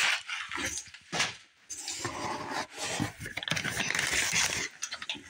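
Kraft paper bags and packing paper rustling and crinkling in a cardboard box as hands dig through the bulk food packages, with a sharp crackle about a second in.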